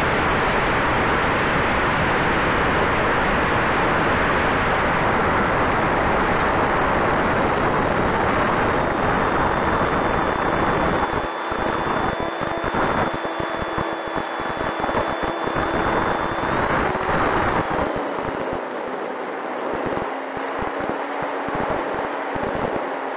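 Wind rushing over the onboard microphone of a flying RC F4U Corsair, with its battery-powered electric motor and propeller under it. Less than halfway in, a steady motor-and-prop whine comes through the wind; it rises briefly and falls again, as the throttle is changed, about three quarters of the way in. The low wind buffeting turns patchy in the second half.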